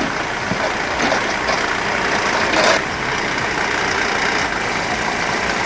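Heavy diesel engine of a logging truck with a mounted log loader running steadily, with a brief louder burst of noise about two and a half seconds in.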